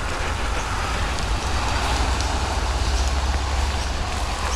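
Rain striking a GoPro camera's housing next to its microphone: a steady hiss with a low rumble underneath.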